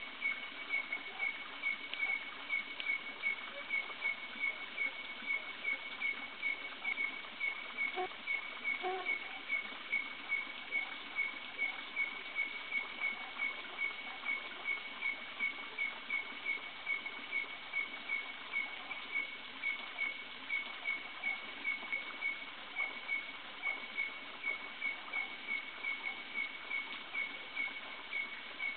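A small animal calling: a short, high chirp repeated evenly about twice a second, without letting up.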